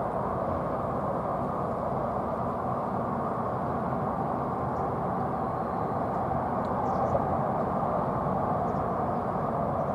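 Steady low background rumble, even throughout, with no bird calls.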